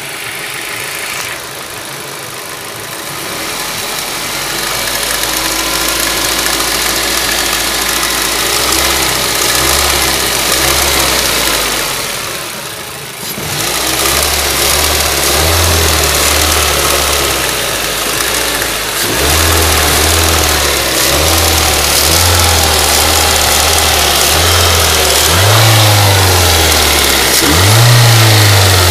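Ford Duratec HE 1.8 four-cylinder petrol engine running, with a knock or clatter whose cause the owner cannot place. Its speed shifts several times, and near the end it is revved up and let fall back twice.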